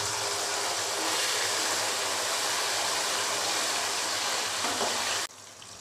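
Frozen, par-fried potato fries sizzling in hot oil on their second fry: a loud, steady hiss that cuts off abruptly near the end.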